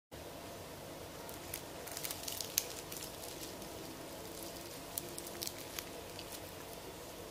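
Crispy fried-chicken crust crackling faintly as a coated chicken piece is torn apart by hand: scattered small crackles over a faint steady background, coming in two clusters, one a couple of seconds in and one about five seconds in.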